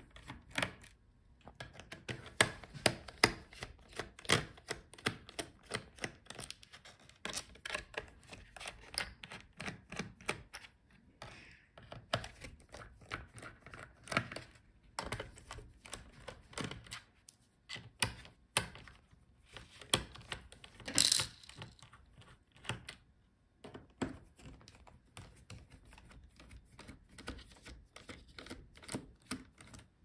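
Precision screwdriver unscrewing the bottom-case screws of a laptop: a long run of light, irregular clicks and taps from the bit and screws against the case, with one sharper click about twenty seconds in.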